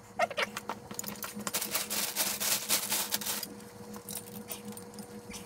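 A rapid run of light clicks and rattles, like small hard objects being handled, that thins out after about three and a half seconds, over a faint steady hum.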